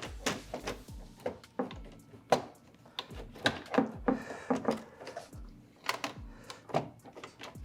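Hard plastic clicks and knocks, irregular and sharp, from handling and test-fitting an LED badge assembly on a car's front grille.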